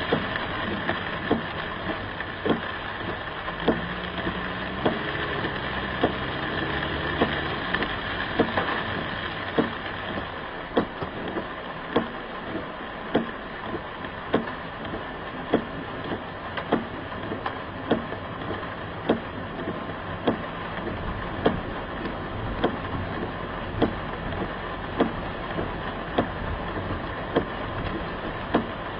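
A car's engine running under a steady rush of rain and floodwater, heard from inside the cabin, with a sharp tick about every second and a bit.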